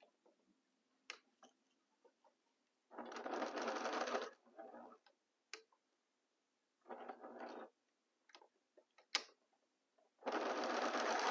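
Home electric sewing machine stitching a seam in three runs: one of about a second and a half, a shorter one midway, and another starting near the end. Small clicks and taps fall in the pauses between runs.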